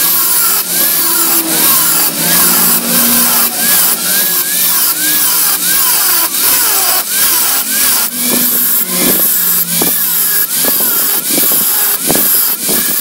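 Angle grinder with a thin cut-off disc cutting shallow crosshatch grooves into a rusty steel bar, a harsh metal-cutting screech over the motor whine. The pitch rises and falls in a steady rhythm of about two strokes a second as the disc is worked in short passes.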